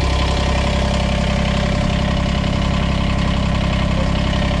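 Kubota BX25D compact tractor's three-cylinder diesel engine idling steadily, exhausting through a newly fitted exhaust tip.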